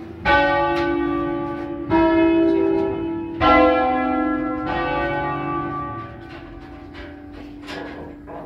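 Church bells of a five-bell set cast by the Barigozzi brothers in 1940, rung by hand with ropes and heard from inside the tower: three loud strokes about a second and a half apart, each ringing on and slowly fading.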